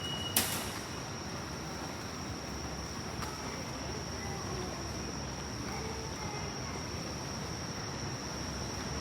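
Train station concourse ambience: a steady background hum with a continuous high-pitched tone, and one sharp click about half a second in.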